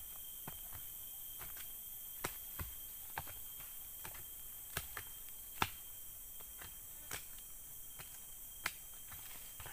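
A short-handled digging tool chopping into forest soil and roots: about a dozen sharp, irregular strikes, the loudest a little past halfway. A steady insect drone runs behind.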